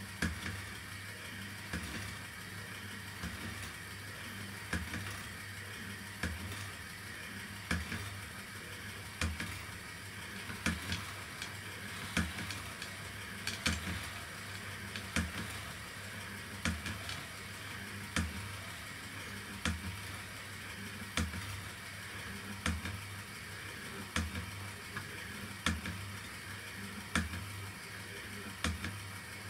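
Destination roll-sign unit from a Seibu 2000 series train winding its film: a steady mechanical whir and hum with a short click about every second and a half as the film rolls through.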